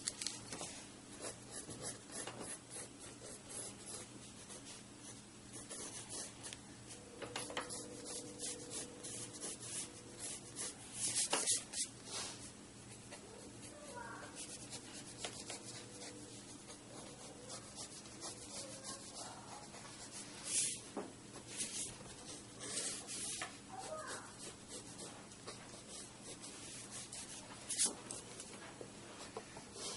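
Pencil sketching on paper: quick scratchy strokes repeated over and over, with a few louder, harder strokes.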